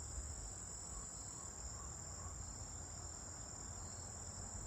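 Steady high-pitched insect chorus, a continuous trill like crickets, with a low rumble underneath.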